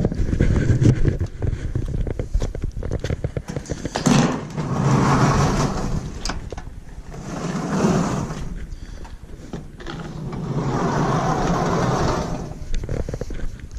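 Large sliding barn door being rolled open along its track, rattling and clanking, in three long pushes with knocks between them.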